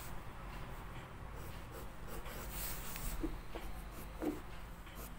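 Red pencil lead scratching on paper in a few short, quick strokes, sketching fur.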